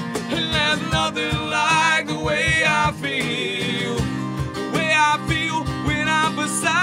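Acoustic country band playing: strummed acoustic guitars under a wavering lead melody, with a steady percussion beat.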